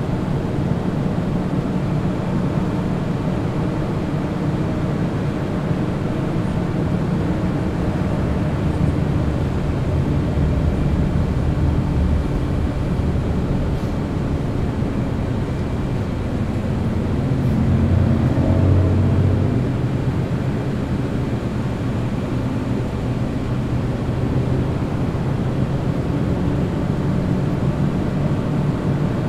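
City bus heard from inside while cruising on a highway: a steady drone of engine and tyre noise, with a brief swell in the low hum about two-thirds of the way through.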